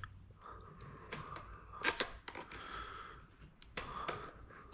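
Light clicks and rubbing as an inspection camera is handled and its probe fed down a spark plug hole, with a sharper click about two seconds in and another at the end.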